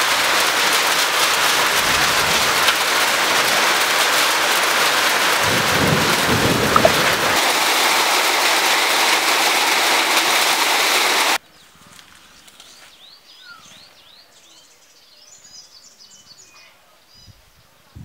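Heavy rainstorm: dense, loud rain hiss, with a low rumble about six seconds in. About eleven seconds in it cuts off suddenly to a quiet background with birds chirping.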